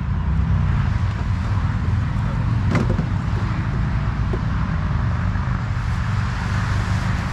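Steady low rumble of a running motor vehicle, with one sharp knock a little under three seconds in.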